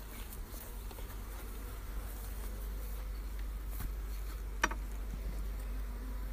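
Honey bees buzzing steadily around an opened hive as a bee-covered frame is lifted out. A single sharp click rings out briefly about four and a half seconds in.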